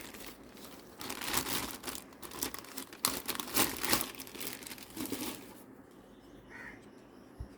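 Plastic packing bag crinkling as the woofer is unwrapped from its sealed bag. The rustling comes in uneven spells for about five and a half seconds, then fades away.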